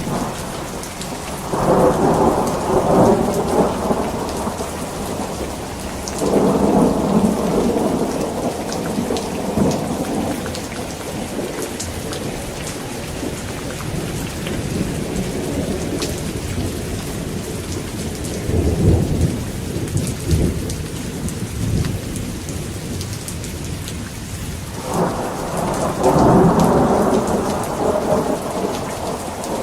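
Steady rain with strong thunder rolling four times: about two seconds in, around six seconds, a deeper rumble near nineteen seconds, and again near the end.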